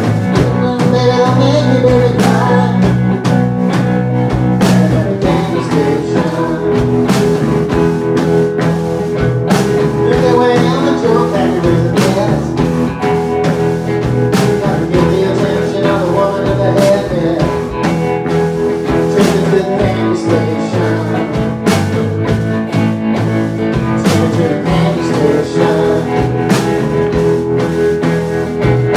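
A rock band playing live: electric guitar, electric bass and a drum kit with cymbals, in a rootsy blues-rock style.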